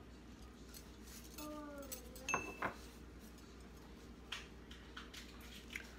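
Faint clinks and taps of a measuring spoon and lemon juice bottle handled over a plastic mixing bowl. There are a few separate taps; the clearest comes about two seconds in, with a short ring and a brief falling tone just before it.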